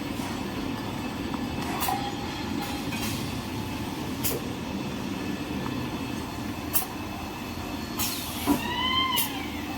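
Small toilet paper machine running: a steady mechanical hum with sharp clicks now and then, and a short bending squeal near the end.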